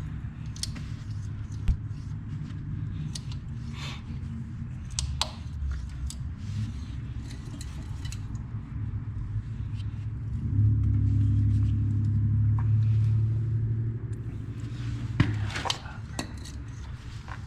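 Scattered light metal clicks and scrapes from a hand tap being turned to chase the rusted threads of a skid steer's track tensioner bolt hole. Under them is a low steady rumble that grows louder for a few seconds about ten seconds in.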